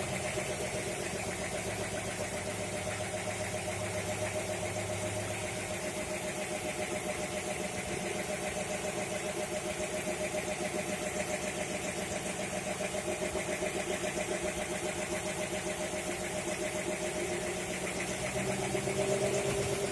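Engine driving a fire pump, running steadily at low speed with an even pulsing beat, a little louder near the end.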